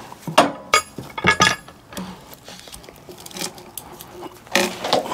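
Irregular metallic clinks and knocks: a handful of sharp strikes, some with a short ringing tail, and a louder knock near the end.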